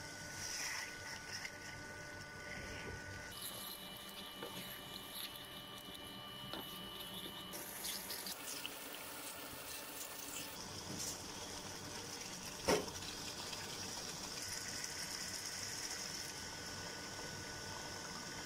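Chicken and potato curry cooking in a non-stick pan and stirred with a wooden spatula: soft, wet sizzling and stirring, with one sharp knock about 13 seconds in.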